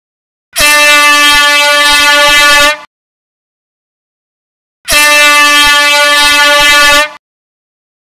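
Air horn sounding two long blasts of about two seconds each, a couple of seconds apart, each a loud, steady single pitch that cuts off sharply.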